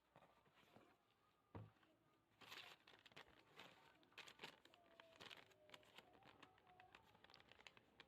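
Faint crinkling and rustling of packaging being handled, with a soft thump about one and a half seconds in and scattered small clicks.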